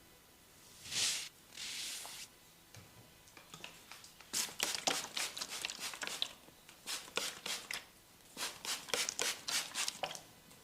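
Hands massaging a head close to the microphone: two soft swishes of palms rubbing over skin and hair, then a quick irregular run of short, sharp taps and slaps.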